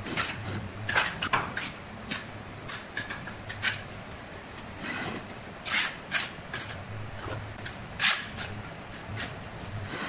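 Steel trowel scraping, slapping and tapping on wet cement mortar: an irregular run of short scrapes and clicks, the loudest about eight seconds in.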